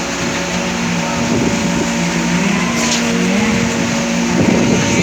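Construction machinery on a concrete pour running steadily: a motor hum over a constant hiss, shifting a little in pitch.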